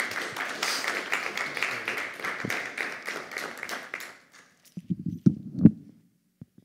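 Audience applauding, dying away about four seconds in, followed by a few dull, low thumps near the end.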